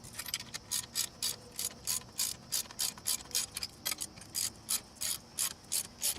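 Ratchet wrench being cranked in steady back-and-forth strokes, its pawl clicking about four times a second, tightening down a strut and lowering-spring assembly.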